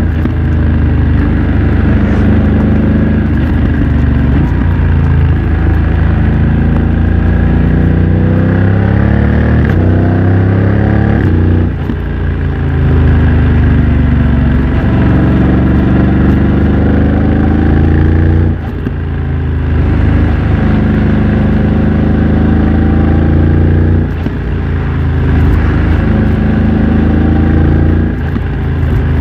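2024 BMW F900 XR's parallel-twin engine running through a MIVV X-M1 aftermarket exhaust while riding, its pitch rising as it accelerates. The sound dips briefly four times, then picks up again.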